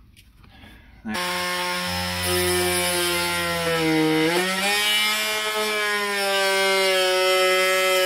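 Oscillating multi-tool starting up about a second in and running with a steady pitched whine as its blade cuts into a wooden panel around an outlet opening. The pitch drops a little and then jumps back up about halfway through.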